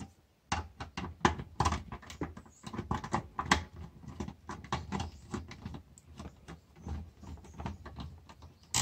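Quick irregular clicks and scratches of a screwdriver and copper wire being worked into the screw terminals of a home distribution board's neutral bar and circuit breakers.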